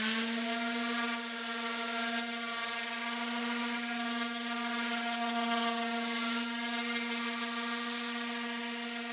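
Makita 115 mm random orbital (palm) sander running at full speed: a steady high whine over a hiss.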